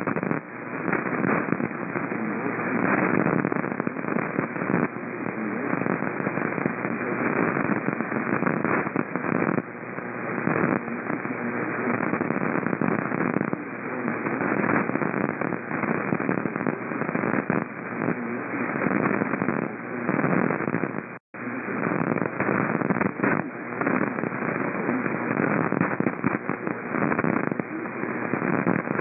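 Radio static: a dense, steady crackling hiss with no programme audible, heard through a narrow radio audio band. It drops out to silence for an instant about 21 seconds in.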